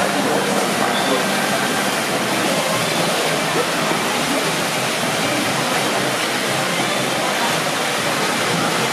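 Steady wash of splashing water from several swimmers racing butterfly in an indoor pool, with indistinct voices underneath.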